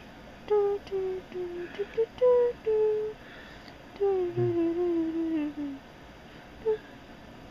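A woman humming a tune: a string of short held notes, then a longer phrase that falls in pitch about four seconds in.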